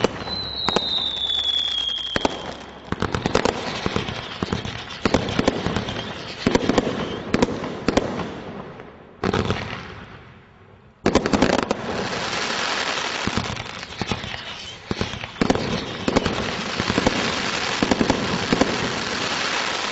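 Brothers Fire One combination Roman candle barrage firing. Whistling shots slide down in pitch in the first two seconds, followed by a rapid run of pops and bangs. The noise dies away briefly about halfway through, then a dense crackling with sharp reports picks up again and carries on.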